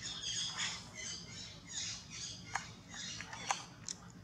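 Baby macaque squealing in high, thin, wavering cries while its mother holds it down, followed by a few sharp clicks in the second half.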